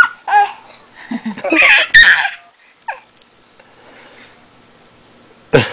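A baby's high-pitched excited squeals and babbling, loudest from about one to two and a half seconds in, then dying away.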